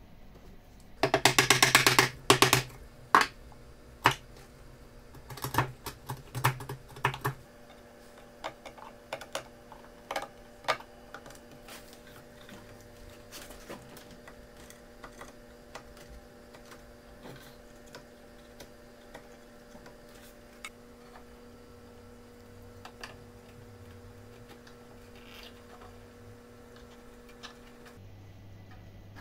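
Hand tools and wooden parts clicking and knocking on a wooden workbench: a quick rattle of sharp taps about a second in, then scattered single knocks that thin out and grow fainter, over a faint steady hum.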